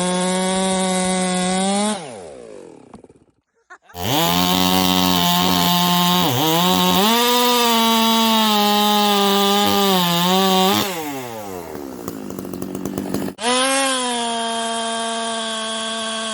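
Ported Stihl MS460 two-stroke chainsaw running at full throttle, its revs falling away about two seconds in and cutting out briefly. It comes back loud and high-revving about four seconds in with a lot of chain hiss, its pitch dipping a couple of times under load as it cuts, drops off near eleven seconds, then snaps back to a steady high rev near the end.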